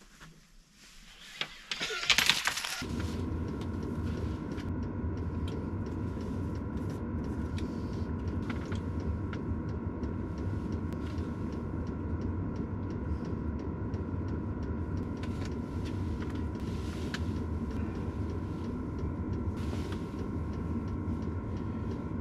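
A portable diesel air heater running: a steady blower roar with a constant whine, which starts about three seconds in after a short rustling burst.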